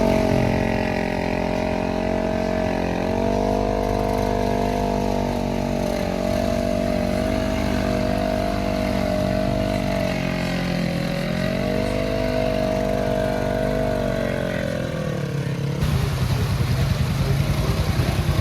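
An ATV engine held at high revs, its pitch rising and falling a little as the throttle is worked. About three seconds before the end it changes abruptly to a lower, rougher, pulsing engine note.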